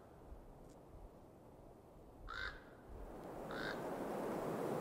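A crow cawing twice, short harsh calls a little over a second apart, over a steady hiss that grows louder about three seconds in.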